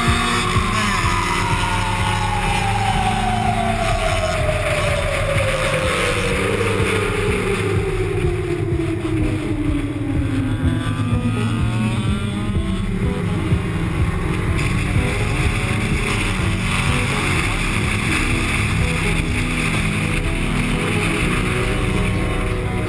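Race car's engine running hard through a series of corners, heard from on board, with a single long tone falling steadily in pitch over the first half or more.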